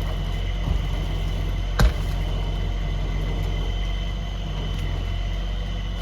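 Rollback wrecker truck's engine running steadily while its winch pulls, with a thin steady whine above the engine note. One sharp knock about two seconds in.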